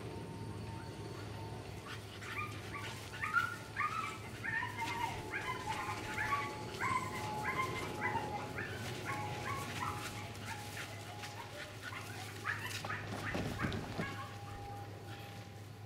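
Staffordshire bull terrier barking in a long string of short, high yips, several a second, from about two seconds in until near the end while it runs the agility course.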